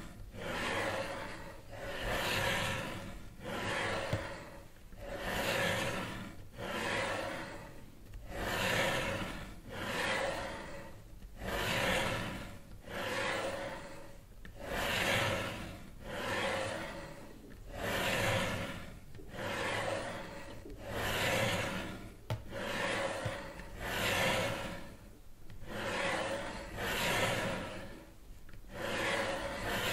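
Rhythmic rubbing or rasping noise that swells and fades evenly, about once every second and a half.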